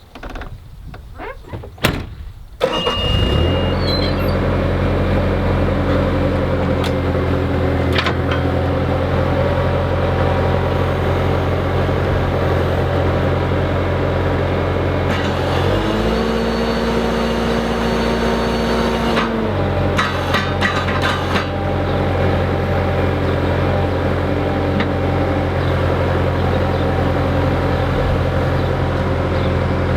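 Skid steer engine starting about two and a half seconds in, after a few sharp clicks, then running steadily. For about three seconds midway a higher steady tone joins the engine, then drops away.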